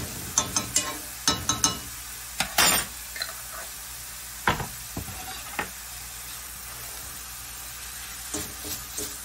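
Sausage, onion, green pepper and celery frying in a cast-iron skillet with a steady sizzle, while a metal fork clicks and scrapes against the pan as the mixture is stirred, in the first few seconds and again near the end.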